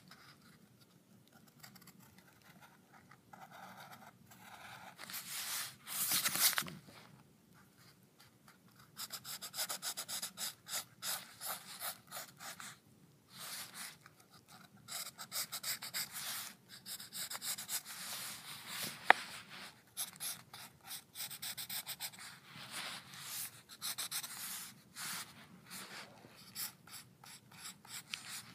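Drawing strokes scratching and rubbing on paper, in long runs of quick short strokes with pauses between them. There is a louder stretch of rubbing about six seconds in and a single sharp click about two-thirds of the way through.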